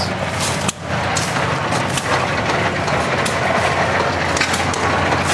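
Machinery running steadily with light crackling and scattered ticks.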